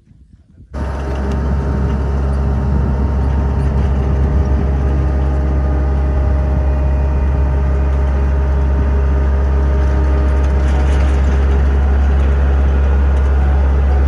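A heavy engine running steadily at constant speed, cutting in abruptly about a second in.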